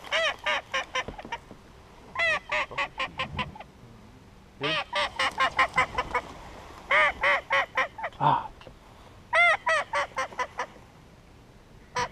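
A hand-blown waterfowl call sounded in runs of short, clean, rising-and-falling notes. There are five runs of about five to eight quick notes each, spaced a couple of seconds apart, all loud and close.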